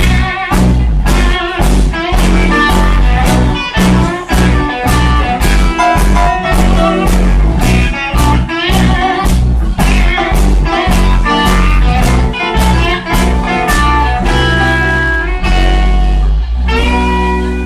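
Live blues band with electric guitars, bass guitar, drums and keyboards playing at a steady beat. About a second before the end the band stops on one long held chord that rings on, the close of the song.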